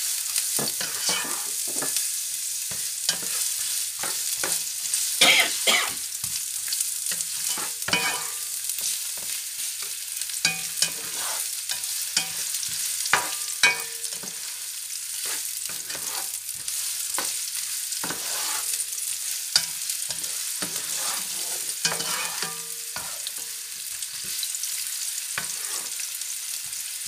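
Sliced onions sizzling in hot oil in a stone-effect non-stick pan, freshly added and being stirred with a spatula, which gives frequent clicks and scrapes against the pan over the steady hiss of the frying.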